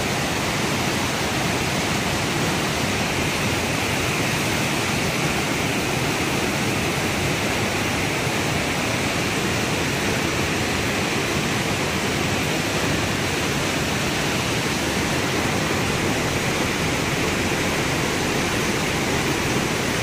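Stream water rushing over rocks beneath a living root bridge, a steady, unbroken noise.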